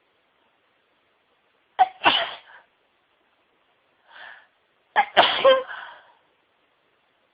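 A person sneezing loudly twice, about three seconds apart, during a long sneezing fit; each sneeze opens with a sharp short catch before the main burst, and a softer short sound comes between them.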